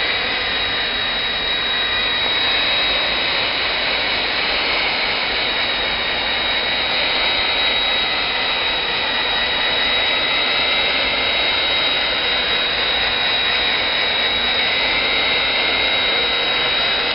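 Hot air welding machine running along the edge of a PVC banner, welding the seam: a steady blower rush with a high, even whine.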